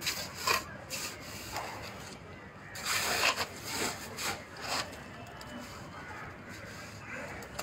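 Steel brick trowel scraping and spreading wet cement mortar on the top of a brick wall and scooping mortar from a mortar pan, in a series of short scrapes with the loudest about three seconds in.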